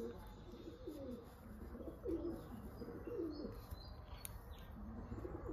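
A dove cooing, a run of low, rounded coos.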